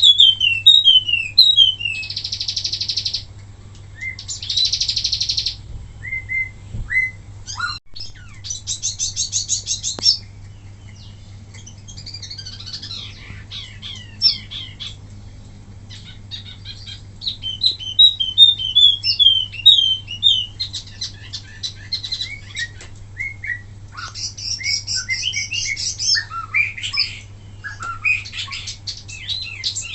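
Wambi mini songbird singing a fast, varied song: strings of quick falling chirps, dense buzzy trills, rapid stuttering rattles and whistled phrases, with short pauses between bursts. This is the rapid-fire 'tembakan' volley that is prized for tutoring other birds. A steady low hum runs underneath.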